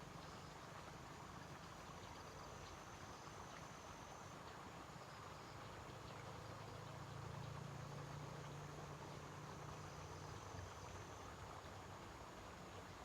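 Insects trilling faintly: a thin, high, steady tone that stops about four seconds in and comes back a few seconds later, over a low hum that grows a little louder midway.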